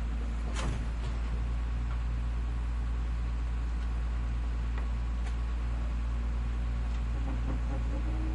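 Garbage truck engine idling steadily with a low hum, with one sharp click or clank about half a second in and a few faint ticks later.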